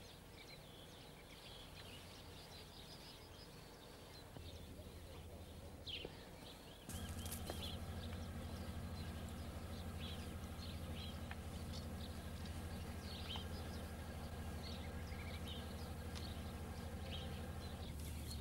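Faint outdoor ambience with birds chirping now and then over a steady low hum; the hum grows louder about seven seconds in.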